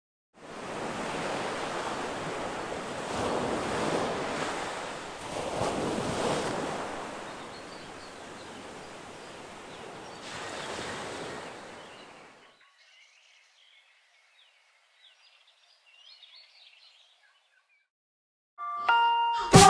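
Rushing surf-like noise that swells and ebbs in several surges, then fades out about twelve seconds in. A few faint high chirps follow, and music comes in near the end.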